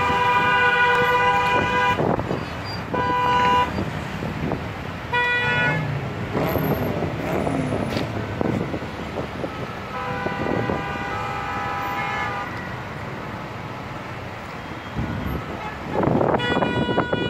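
Car horns honking in a traffic jam over steady traffic noise. There is a long blast of about two seconds at the start, short blasts around three and five seconds in, and another long one at a different pitch from about ten to twelve seconds. One more begins near the end.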